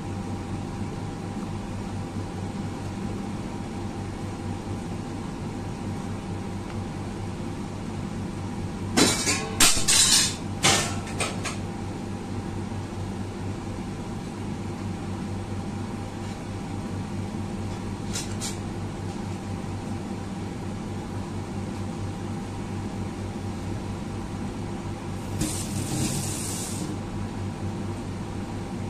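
Steady mechanical hum of a kitchen appliance's fan. About nine to eleven seconds in there is a burst of sharp clattering, later a faint double click, and a short rush of noise near the end.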